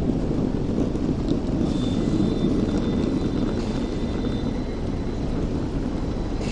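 Hong Kong Tramways double-decker tram running slowly on street track around a tight curve, a steady low rumble of wheels on rail. A thin steady high tone sounds for about three seconds in the middle.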